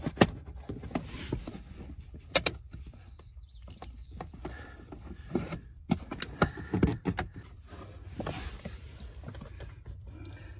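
Plastic interior trim of a car's footwell and lower door panel being pulled and handled by hand: scattered clicks and knocks of plastic, the sharpest just after the start and about two seconds in, with rubbing and brushing in between.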